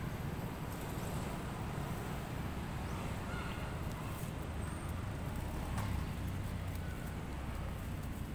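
A young long-tailed macaque giving short, high-pitched squeals, twice, as an older monkey pins it to the ground, over a steady low rumble.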